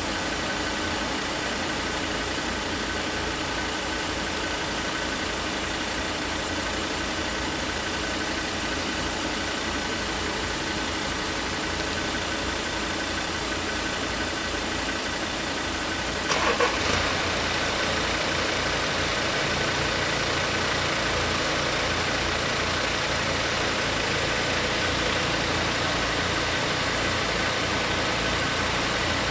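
Car engines idling in a queue at closed level-crossing barriers. About halfway through there is a short knock, and the engine sound then gets a little louder and fuller as the car alongside creeps forward.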